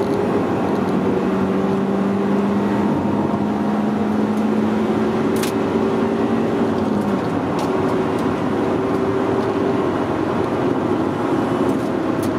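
Honda Civic Type R's four-cylinder engine and road noise heard from inside the cabin at speed. The engine note climbs slowly for about seven seconds, then drops away; a single short click about five and a half seconds in.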